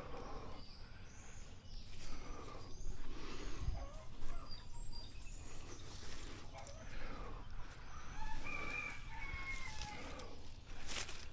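Birds calling, with short chirps and one longer call about eight seconds in, over branches and leaves rustling as the climber moves through the tree, and a sharp brush or knock near the end.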